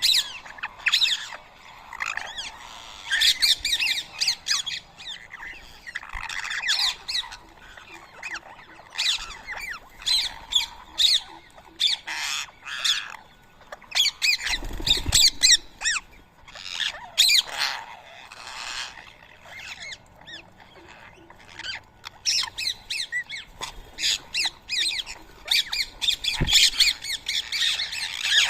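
Rose-ringed parakeets (Indian ring-necked parrots) giving harsh, short squawks over and over, several birds calling in quick clusters at a feeding spot.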